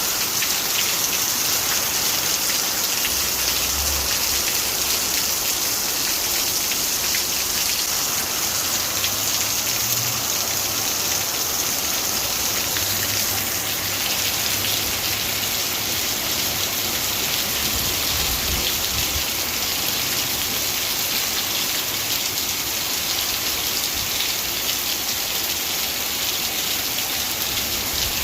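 Heavy rain falling steadily in a thunderstorm: an even, unbroken hiss.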